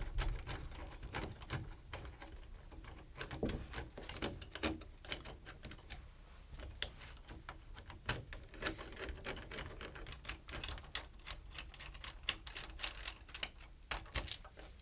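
Screwdriver backing out the two screws that hold an interior doorknob: a run of small, irregular clicks and ticks, with a louder cluster near the end.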